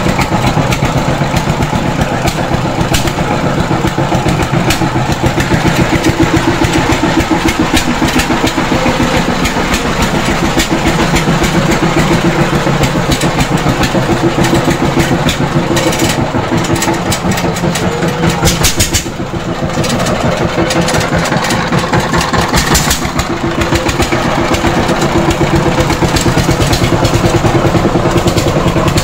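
Two-wheel power tiller's single-cylinder diesel engine running, a loud, rapid, even chugging as the tiller is driven along. The engine eases off briefly about two-thirds of the way in, then picks up again.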